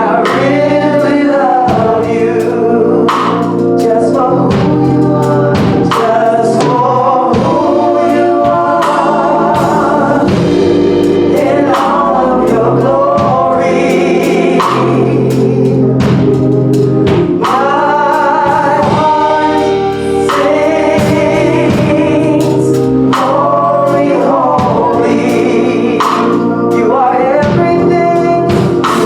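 Gospel choir singing over a band with drums.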